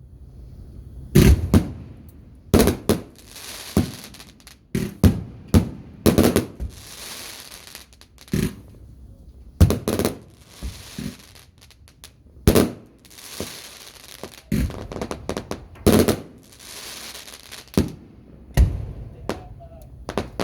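Fireworks going off: an irregular string of sharp bangs, about one a second, with crackling hiss in between some of them.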